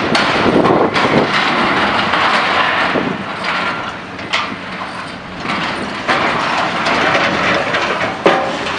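Tracked Caterpillar demolition excavators at work: a dense, continuous clatter of metal and debris crunching and scraping, broken by sharp metallic knocks, the loudest one near the end, over running diesel engines.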